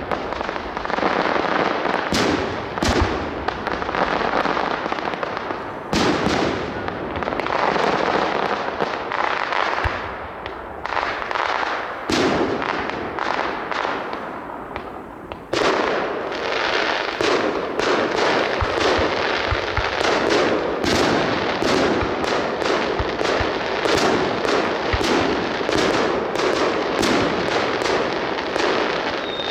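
Fireworks display: repeated sharp bangs over dense crackling, thinning out about ten seconds in, then a sudden return of continuous crackling and bangs about halfway through.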